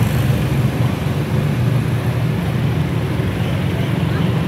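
Steady low rumble of street traffic and engines.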